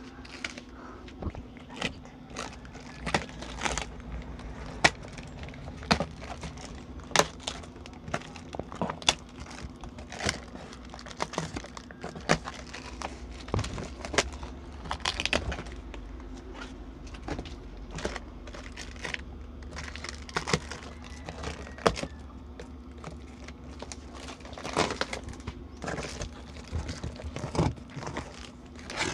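Cardboard parcel being opened by hand: irregular sharp snaps and cracks from the packing tape and cardboard flaps, a few every second or two, with rustling between them over a steady low hum.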